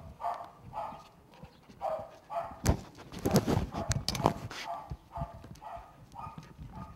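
Young puppies yipping over and over, about twice a second. Loud knocks and scuffles against the microphone for a couple of seconds in the middle.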